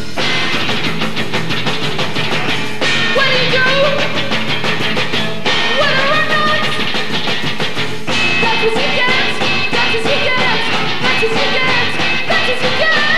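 A rock band playing live: bass guitar, electric guitar and drum kit. A wavering high melody line comes in about three seconds in.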